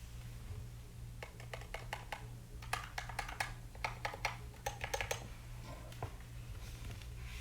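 Typing on an Epomaker SK64 mechanical keyboard with Gateron optical black linear switches: a quick run of keystrokes starting about a second in and stopping about five seconds in.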